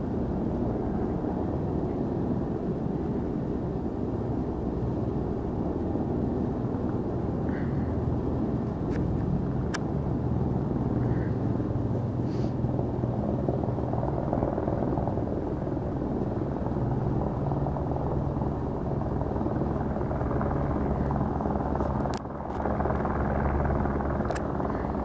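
Light single-rotor helicopter flying steadily: a continuous low rotor and engine hum. Its level dips briefly about three-quarters of the way through.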